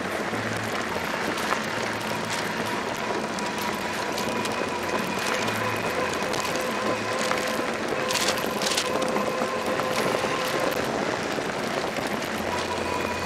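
Fat-tire electric bike riding along a gravel dirt road: a steady rush of tyre and wind noise, with a thin, steady whine from the electric motor. There is a brief rattle about eight seconds in.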